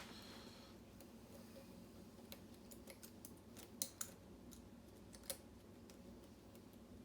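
Faint, scattered metallic clicks and ticks of a hook pick and tension wrench working the pins of a pin-tumbler lock, with three sharper clicks around the middle, over a faint steady hum.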